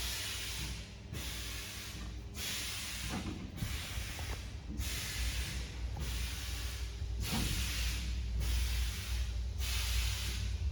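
Aerosol can gassing machine cycling: a short burst of pneumatic hiss about every second and a quarter, over a steady low machine hum.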